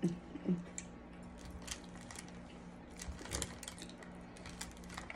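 Eating sounds: a metal fork clicking and tapping against a foil-lined takeout container as food is picked up, with a couple of short mouth sounds while chewing near the start.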